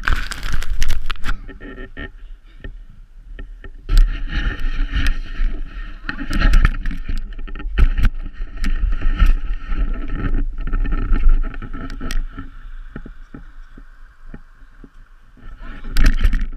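Snow scraping and hissing under a person's body and clothing as he slides down a snowy slope, with wind buffeting the action camera's microphone in a low rumble and the camera pole knocking. The noise comes in uneven surges with many sharp knocks.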